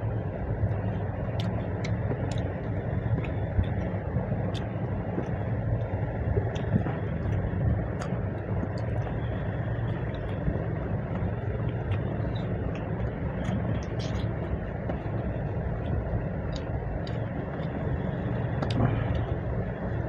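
Eating by hand: fingers mixing curry and rice on steel plates, and chewing, heard as scattered small clicks and smacks. These sit over a steady low rumble that carries through the whole time.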